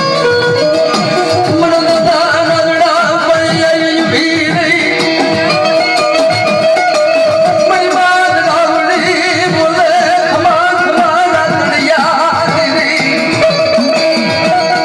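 Gujarati devotional folk music, loud and continuous. Steady held drone tones sit under a wavering, ornamented melody, with quick drum beats running throughout.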